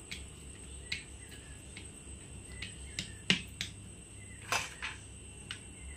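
Irregular light clicks and taps of a spatula and sliced nuts against steel plates as almonds and cashews are pressed into barfi, about eight in all, the loudest a little past three seconds in.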